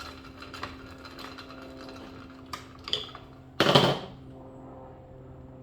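Light clicks and rattles of chassis parts and tools being handled, then a knock about three seconds in and a louder clack shortly after, over a steady low hum.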